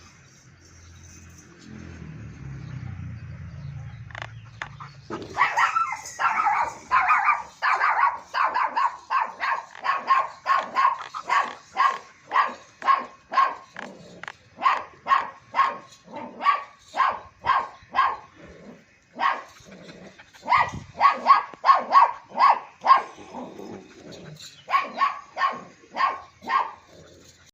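Long-coat German shepherd barking over and over, about two barks a second, starting about five seconds in and pausing briefly twice.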